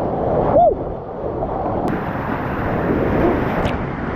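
Wind buffeting the microphone over a steady rushing noise. About half a second in there is a brief rising-and-falling tone.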